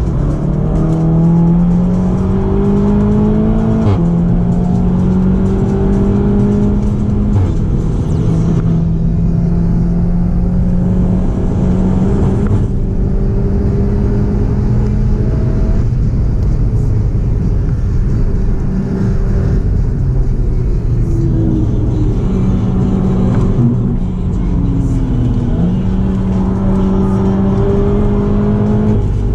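Seat Leon Cupra 290's turbocharged 2.0-litre four-cylinder engine under hard acceleration, heard inside the cabin. Its note climbs in pitch and drops sharply at quick DSG gearshifts, and eases off at lifts for corners, over steady tyre and road noise.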